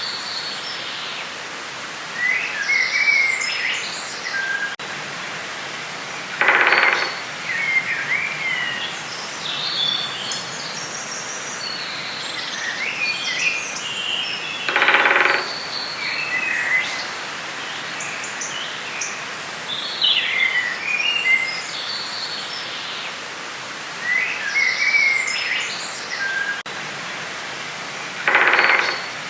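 Forest ambience: songbirds repeating short twittering phrases over a steady background hiss. A louder, lower, harsher call sounds three times, each lasting about a second.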